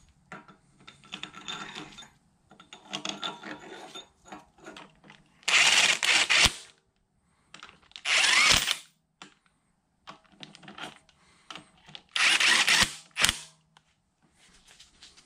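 Cordless power driver with a socket extension running down the nuts on the Bridgeport mill head's locking studs. It runs in three spurts of about a second each, with fainter handling sounds in between.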